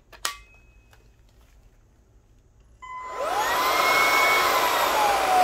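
A sharp click just after the start, then about three seconds in the Bissell IconPet Pro cordless stick vacuum is switched on with its motorized brush tool fitted. The motor spins up with a rising whine and runs steadily, its pitch easing down slightly near the end.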